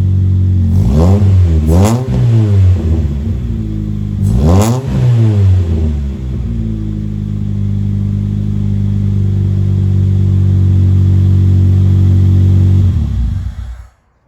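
Toyota Starlet engine running through a freshly built custom exhaust with a new muffler and catalytic converter. It is blipped twice in quick succession about a second in and once more a few seconds later, settles back to a steady idle, and cuts off near the end.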